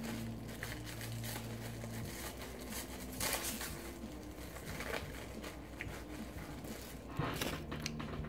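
Close-miked chewing of a mouthful of poutine: irregular wet smacks and soft crunches, loudest about three seconds in and again near the end.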